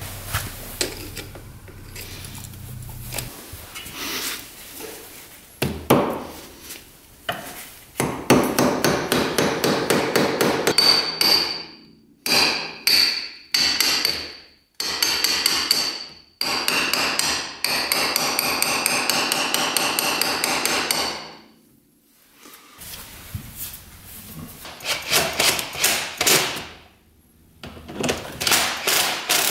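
Workshop tool noise: several long bursts of rapid metallic clicking and rattling, each lasting a few seconds, with short pauses between them.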